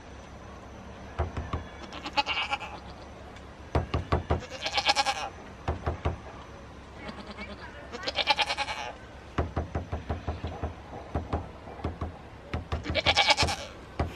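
A goat bleats loudly four times, with a weaker call in between. Between the bleats come runs of quick, sharp tapping knocks, hand drumming on a hard surface.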